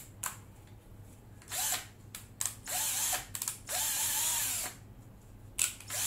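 Hitachi 10.8 V cordless drill driver from the KC10DML kit, free-running with no load in short trigger pulls. The motor spins up and winds down about four times, each run lasting about a second. A couple of sharp clicks come at the start.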